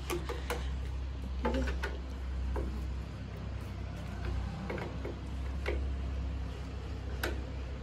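Scattered light clicks and knocks from hand tools and fittings being worked on a motorcycle's rear number plate, over a steady low rumble.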